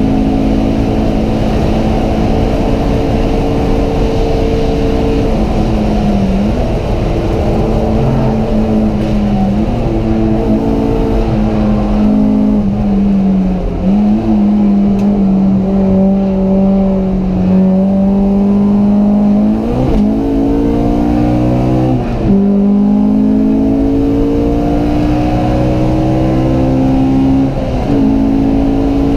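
Honda Civic Type-R engine running hard under load, heard from inside the cabin. Its pitch holds fairly steady, then dips briefly and climbs again about six times as the car changes gear or lifts for corners.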